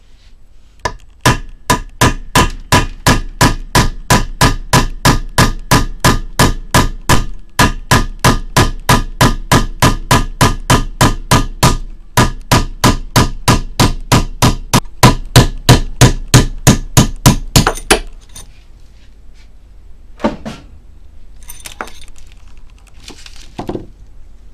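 Hammer striking a steel drift set in a cylinder head's valve guide bore, driving the valve guide: a long steady run of sharp metallic blows, about three a second, each ringing briefly. The blows stop about 18 seconds in, leaving only a few faint knocks.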